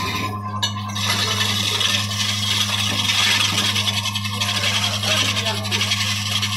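An electric woodworking machine hums steadily while a tool scrapes and cuts wood with a rough, hissing scrape that grows louder about a second in.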